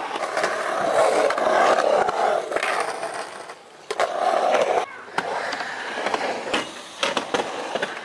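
Skateboard urethane wheels rolling across a concrete bowl, a rushing noise that swells and fades twice. In the second half come several sharp clacks of the board and trucks striking the surface.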